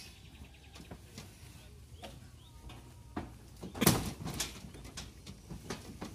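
Several short knocks and thumps, the loudest about four seconds in, as crew handle speaker cabinets and flight cases on a stage.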